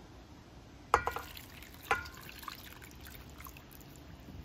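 Teriyaki marinade poured from a stainless steel saucepan onto sliced flank steak in a stainless steel bowl, with two sharp metal clinks about one and two seconds in.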